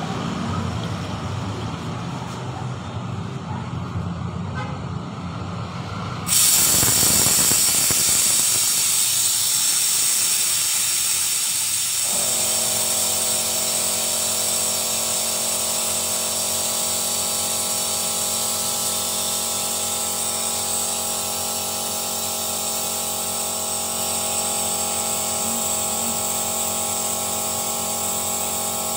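Compressed air hissing through the air-driven vacuum unit of an engine carbon-cleaning rig, switched on suddenly about six seconds in and holding steady. Before it a low rumble; from about halfway several steady hum tones run under the hiss.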